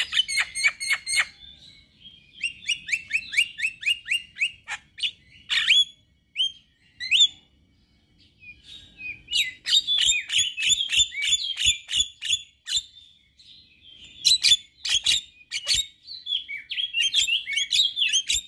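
Male Javan myna (jalak kebo) singing in bursts of fast, chattering chirps mixed with sharp clicks, with short pauses and one longer silence about eight seconds in.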